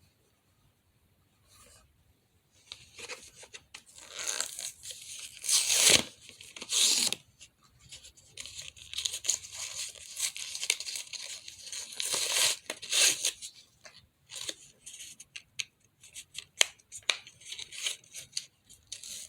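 Packaging being torn open by hand and crinkling, in uneven bursts with sharp clicks, starting about two and a half seconds in.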